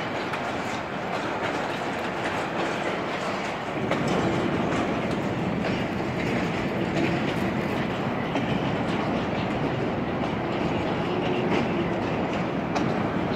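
A freight train of STVA car-carrier wagons hauled by a DB Class 66 diesel rolls past close by: a steady rumble with the wheels clicking over the rails, getting louder about four seconds in as the wagons come alongside.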